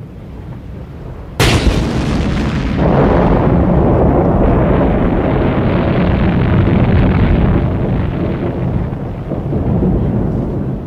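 Cartoon explosion sound effect: a low rumble, then a sudden loud boom about one and a half seconds in, trailing into a long heavy rumble that eases slightly near the end.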